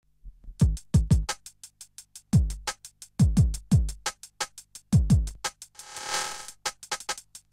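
Hard tribal techno on a drum machine: deep kick drums with a quick downward pitch drop, fired in broken clusters of two and three, over fast, even hi-hat ticks and a low steady bass drone. A hissing noise sweep swells and fades about six seconds in.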